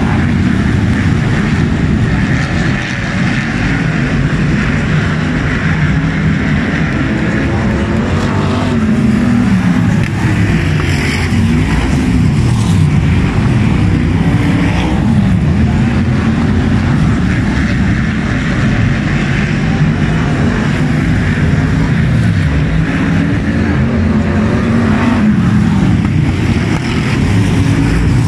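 Several F1 stock car engines racing together, a loud continuous mix of engines revving up and down as the cars accelerate out of the bends and pass by.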